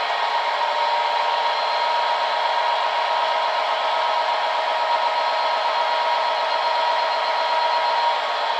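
A model railway sound decoder playing a Class 67 diesel locomotive's EMD two-stroke V12 engine idling, through two small speakers in the model's fuel tanks. Steady, with a constant high whine and no deep rumble.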